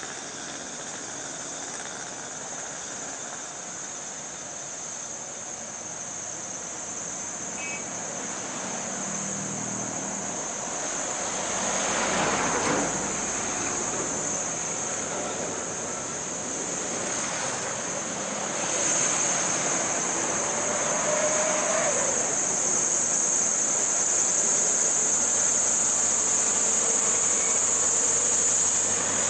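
Road traffic on a climb: cars and motorcycles passing, with the Scania P380 truck's engine growing louder as it comes up the hill under load in the second half. A steady high-pitched shrill drone runs underneath throughout.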